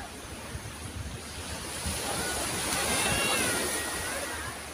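Sea waves washing on a pebble shore, with one surge swelling about two seconds in and easing off near the end.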